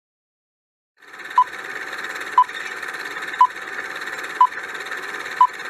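Countdown timer sound effect: a steady hiss that starts about a second in, with a short pip once a second, five times.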